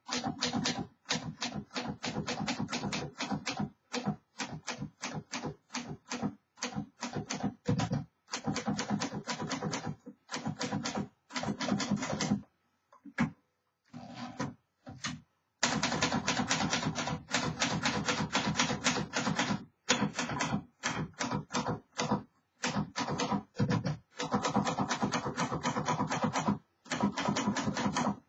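Typing on a 1951 Underwood Champion Finger Flite manual typewriter: rapid runs of key strikes with typebars clacking against the platen, broken by short pauses.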